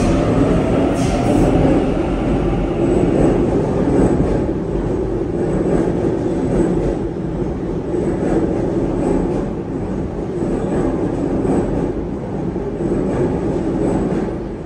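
Sydney Trains double-deck electric train running past along the station platform: a steady rumble of wheels and running gear, with light ticks as the wheels cross the rail.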